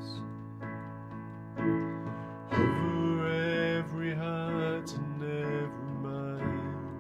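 Piano-style keyboard playing slow, sustained chords in an instrumental passage of a worship song, with a louder new chord about two and a half seconds in.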